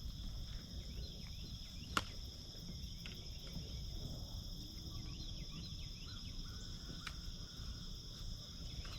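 Insects chirring steadily on two high pitches over a low rumbling background noise, with a sharp click about two seconds in and another about seven seconds in.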